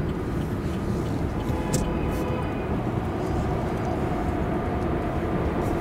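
Steady engine and road noise of a car being driven at low speed.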